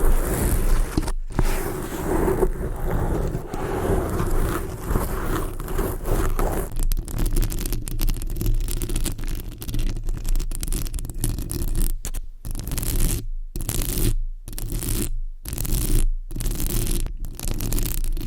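Fingernails scratching a surface in rapid, continuous strokes, with a few brief pauses in the second half.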